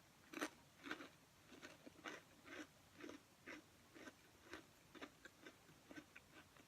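Faint, regular crunching of a thin, crisp pretzel cracker being chewed, about two crunches a second.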